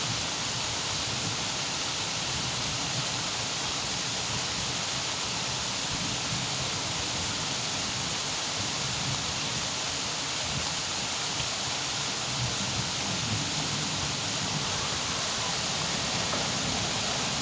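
Steady rain falling, an even hiss, with a low rumble of thunder starting to build near the end.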